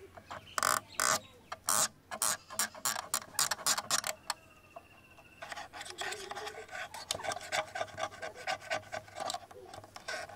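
Scratching and tapping on a camera body: quick, irregular scrapes and clicks in a busy run.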